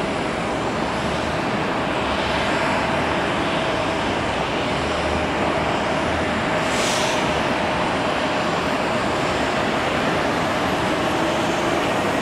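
Boeing 777's twin jet engines running at low taxi power: a steady rushing noise with a faint steady whine. There is a brief hiss about seven seconds in.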